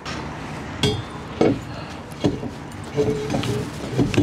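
Steel gooseneck extension being fitted up onto a trailer's gooseneck coupler: a series of sharp, irregular metal knocks and clinks, about six in all.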